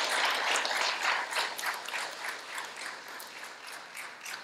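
An audience applauds the end of a speech. The clapping is dense at first, then thins to scattered claps and dies away.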